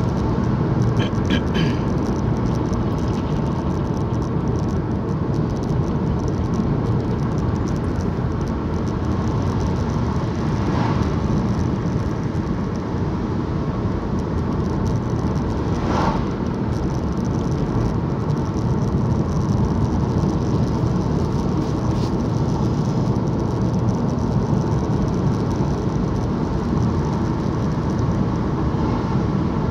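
Car driving along a road heard from inside the cabin: steady engine and tyre noise, with a faint short click about sixteen seconds in.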